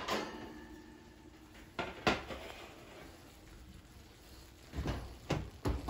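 Glass baking dish being slid off the oven rack and set down on a glass-top electric stove: a few sharp clinks and knocks, the loudest about two seconds in. Low thuds near the end as the oven door is pushed shut.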